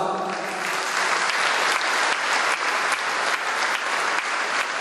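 An audience applauding, a steady clapping of many hands.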